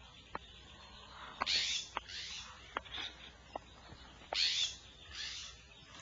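Barn owl beak snapping, a threat display: about six sharp clicks, roughly one a second, mixed with short harsh hissing calls, the loudest about a second and a half in and again past the four-second mark.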